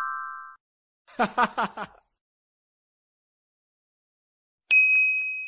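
Editing sound effects over dead silence: a bell-like chime ringing out at the start, a quick run of five short vocal sounds about a second in, and a single bright ding near the end that rings on.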